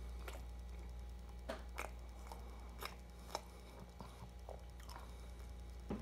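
A person chewing and biting a Big Mac and fries close to the microphone: irregular short clicks and mouth noises, over a steady low hum.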